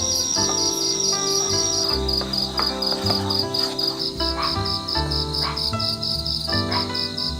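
Crickets chirping in a fast, even pulse, with soft melodic music of held notes underneath.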